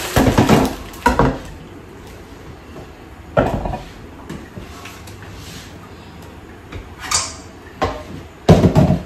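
Kitchen handling sounds: a pan lid and a plastic colander knocking and clattering against a frying pan on a portable gas burner, in a few separate bursts with quieter gaps between. The loudest clatter comes near the end.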